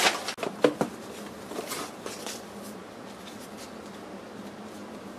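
Kraft paper packing crackling and a few light knocks as wrapped kit parts are handled, the loudest knock under a second in, then a faint steady hum.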